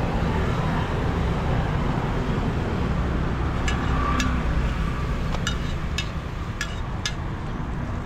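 Steady rumble of passing street traffic. In the second half, a run of six or seven sharp metallic taps about half a second apart: a metal spatula striking the griddle pan while the roti is turned.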